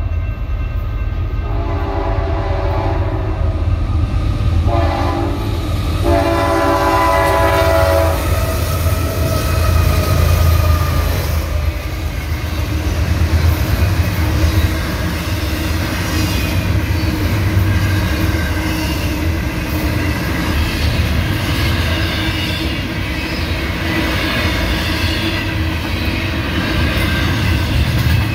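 Freight train horn blowing the grade-crossing signal, its last blasts long, short, long and ending about eight seconds in. Then a double-stack container train of well cars rolls past with a steady heavy rumble and wheel clatter.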